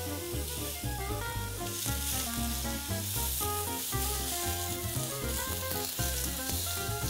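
Fennel wedges sizzling steadily in a hot grill pan as they are turned over with a fork, under background music with a steady bass line.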